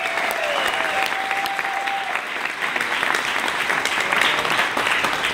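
Wedding guests applauding, a dense steady clapping from a roomful of people, with one long held tone over it that stops about two seconds in.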